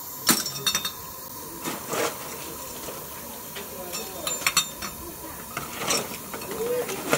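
Lumps of coal clinking and knocking as a gloved hand sorts them in a miniature steam locomotive's coal bunker: a string of sharp clinks, with a quick cluster about four and a half seconds in, over a steady hiss.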